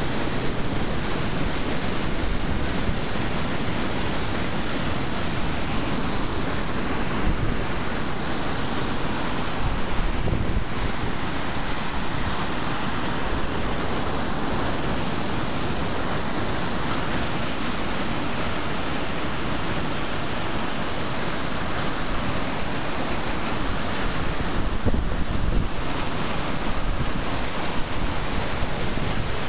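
Creek in flood: fast, churning floodwater rushing past in a loud, steady wash of noise, with wind buffeting the microphone.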